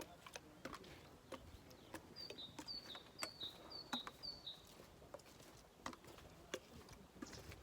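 A bird chirping five times in a quick, even series near the middle, against faint scattered clicks and knocks.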